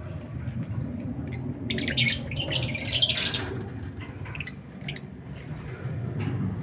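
Small songbird chirping in quick high bursts: a long run of rapid chirps about two seconds in, then a shorter one near the five-second mark, over a steady low background rumble.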